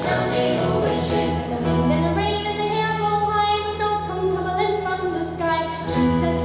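Jig music played for a dance: a quick melody over a steady low drone.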